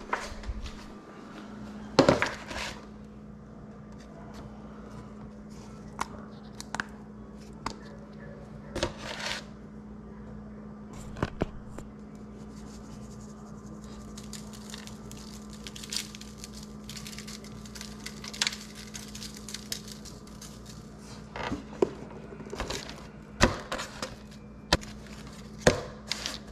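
Kitchen handling sounds: scattered knocks and clicks of dishes and utensils being set down and moved, over a steady low hum.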